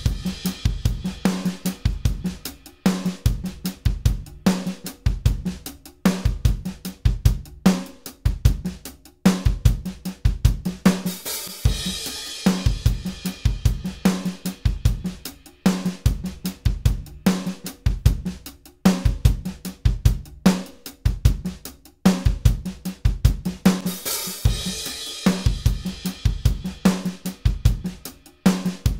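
Sampled acoustic drum kit from EZdrummer 3 playing a fast rock groove of kick, snare and hi-hat, with crash cymbals about a second in, around twelve seconds and around twenty-five seconds. It runs through a Distressor-style brick-wall limiter (Xtressor Nuke) on the drum bus with its mix knob partly dialed back, blending the limiter's clicky, snappy transients with the dry kit.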